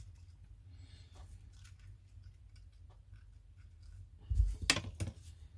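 Small clicks and ticks from hands handling thin LED wires and small tools, with a louder knock or two about four and a half seconds in, over a faint steady low hum.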